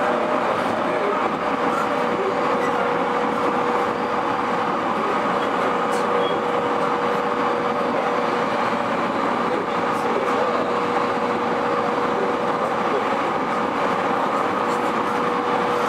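E231-series electric commuter train running: a steady rolling noise with one constant hum held at the same pitch throughout, and a few faint ticks.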